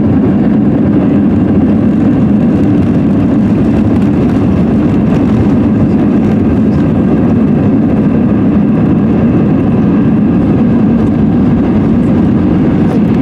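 Loud, steady cabin rumble of an Airbus A320-200 rolling out on the runway after landing: engine and airframe noise with the wheels on the runway.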